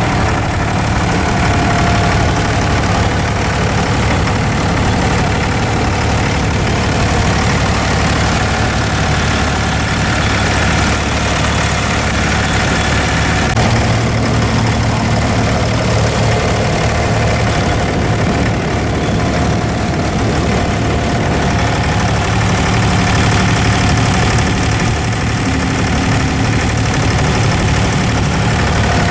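An abra's diesel engine running steadily, a loud continuous rumble with a low hum.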